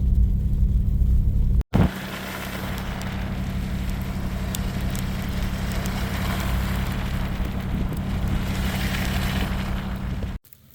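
Truck driving on a snowy, slushy road: a steady low engine and road rumble, then after a sudden cut about two seconds in, a broad steady road hiss with faint crackling over the engine hum. It cuts off abruptly near the end.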